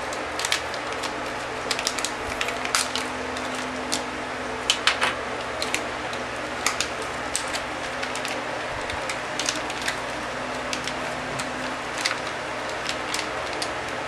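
Stiff plastic memory-module packaging being pried and pulled open by hand: irregular sharp crackles and clicks, over a steady low hum.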